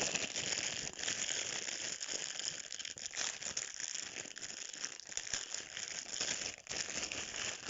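Plastic packaging crinkling and rustling continuously as it is handled and pulled open.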